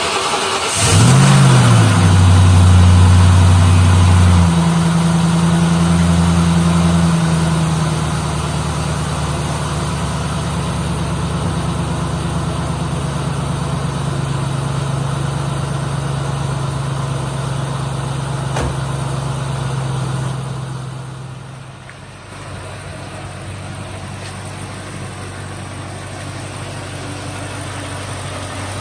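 A 2003 Ford Mustang SVT Cobra's supercharged 4.6-litre V8 starting on a fresh battery after winter storage. The engine catches about a second in with a quick rev and runs at a loud, high cold-start idle. It eases down in steps and settles to a lower, steady idle a little after twenty seconds.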